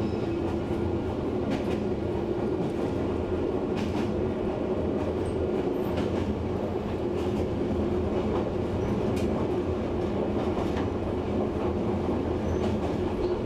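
Electric train running, heard from inside the car: a steady rumble and hum, with occasional faint clacks of the wheels over rail joints.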